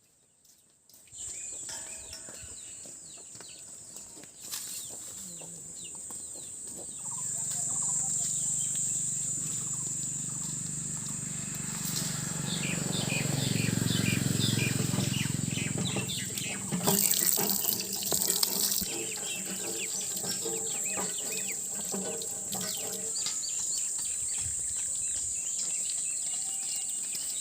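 Water running from a tap into a sink or vessel, swelling louder in the middle, with birds chirping over a steady high whine.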